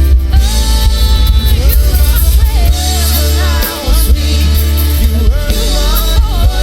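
A song with a sung melody over a heavily boosted bass line, which drops out briefly about two thirds of the way in.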